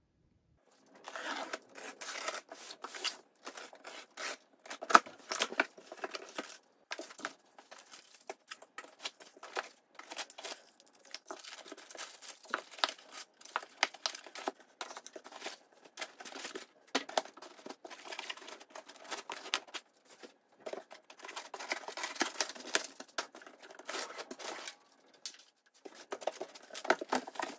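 A large cardboard shipping box being opened by hand: packing tape tearing, then cardboard flaps and foam packing inserts rustling and scraping in irregular bursts.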